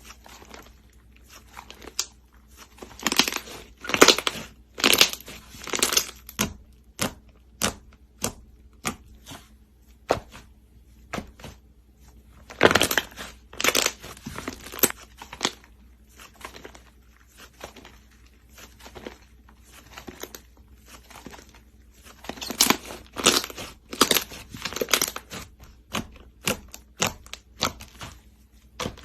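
Slime being pressed and pulled by hand, giving quick runs of sticky crackling pops. The pops come in three louder clusters, with single pops scattered between them.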